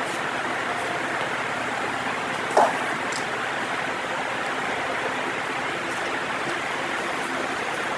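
Steady hiss of background noise in the room, with one brief, louder short sound about two and a half seconds in.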